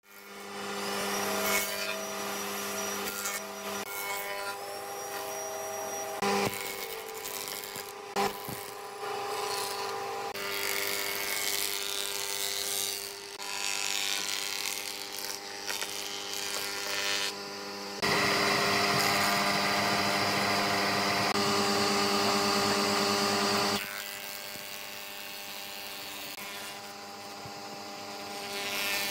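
Stationary woodworking planing machines, a jointer and a thickness planer, running with a steady motor hum as a wooden board is planed. A louder stretch of cutting lasts several seconds past the middle.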